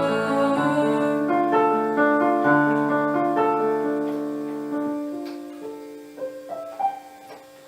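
Piano playing an unaccompanied passage of held chords and single notes, growing steadily softer and thinning to a few light notes near the end.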